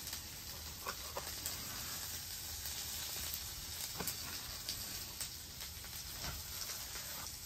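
Faint, steady sizzle of vegetables frying on a Blackstone flat-top griddle, with a few soft knife taps on a wooden cutting board as a salmon fillet is cut into portions.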